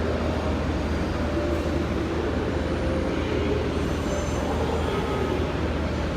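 JR Kyushu 787 series electric train departing and running, a steady rumble with faint high tones coming in about four seconds in.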